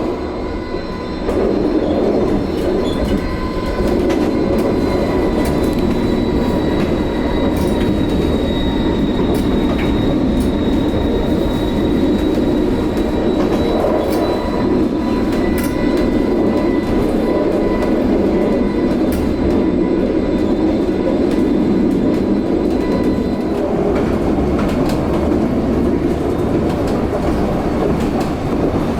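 Vossloh Tramlink light-rail tram running along the line, heard from on board: a steady rolling rumble with a thin, high, even whine over it and occasional clicks from the track.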